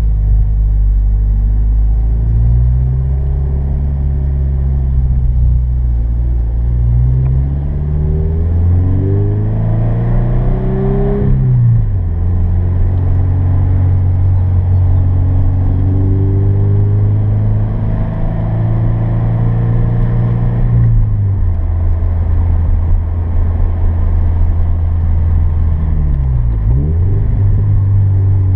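Turbocharged Scion FR-S flat-four engine, heard from inside the cabin, driven hard on an autocross course. Revs climb through about 7 to 11 seconds and drop sharply at a shift or lift, run steady, drop again about 21 seconds in, and dip and recover quickly near the end.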